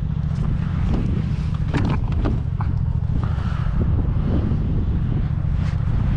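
Wind buffeting the microphone, a steady low rumble, with scattered light clicks and knocks from handling the rod and kayak gear.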